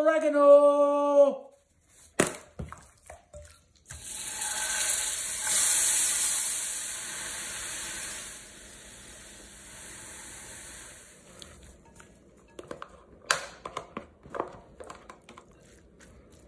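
Spinach and red onion sizzling in a stainless-steel skillet: a steady hiss that starts a few seconds in, swells, and fades away. Near the end, a spatula taps and scrapes in a glass bowl as the spinach and feta stuffing is stirred.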